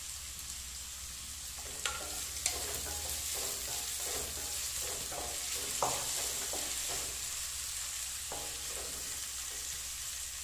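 Chopped onions, green chillies and curry leaves sizzling as they sauté in oil in a stainless steel kadai. From about two seconds in, a spatula scrapes and clicks against the pan as the mixture is stirred.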